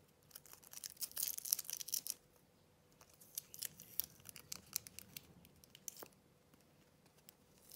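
Clear adhesive tape being pulled off its roll, a crackling peel in a few short spells, then a snip of scissors about six seconds in.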